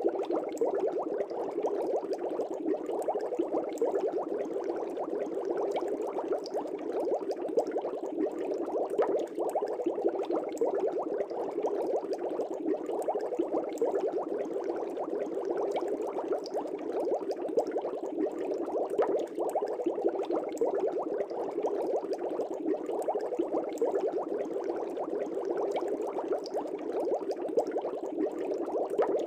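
Aquarium air bubbles rising and breaking at the water surface in a steady, dense bubbling, like a continuous gentle boil.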